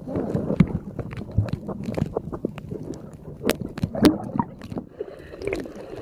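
Water heard through a camera held underwater: muffled sloshing and gurgling, with scattered sharp clicks, the loudest about three and a half and four seconds in.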